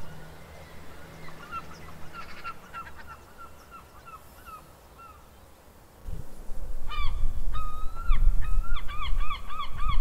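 A flock of birds giving short calls that rise then fall, faint and scattered at first, then louder and quick, about three a second, from about seven seconds in. A low rumble comes in about six seconds in under the calls.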